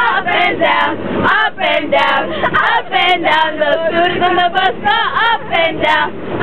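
A group of young voices singing a song together in chorus, loud and close to the microphone.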